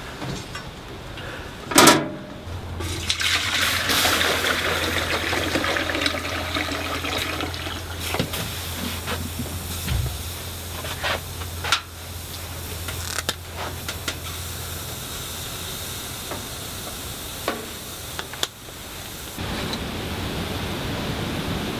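Water pouring from a plastic water jug into a metal container on a wood stove, a rushing pour lasting several seconds, after a sharp metal clank about two seconds in. Scattered clinks and knocks follow once the pouring stops.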